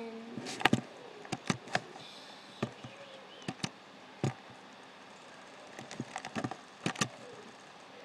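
Computer mouse clicking: about fifteen sharp clicks at irregular times, several coming in quick pairs or short runs, over faint steady hiss.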